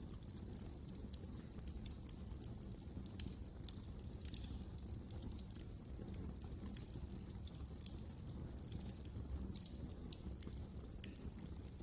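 Wood fire crackling in a fireplace: frequent, irregular small pops and snaps over a low, steady rumble, with one sharper pop near the end.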